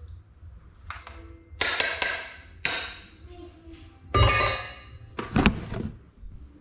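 Dishes and kitchen utensils clattering as food is served into a bowl: a series of clinks and knocks, each with a short ring. The loudest clatter comes just after four seconds in, followed by a sharp knock about a second later.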